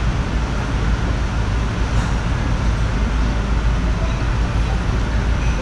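Steady loud low rumble with hiss, even throughout and without distinct events.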